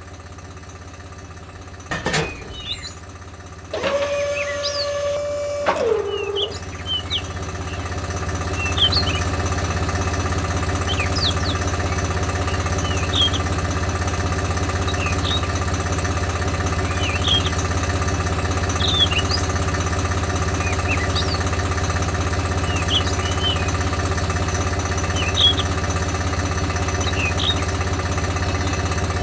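A steady whine about four seconds in, then a small engine starts and runs steadily. Birds chirp throughout.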